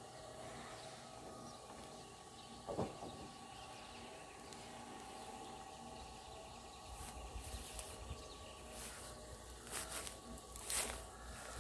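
Footsteps through tall grass and weeds, irregular rustling and crunching strokes starting about two-thirds of the way in. Underneath is a faint, steady outdoor background with a thin steady hum.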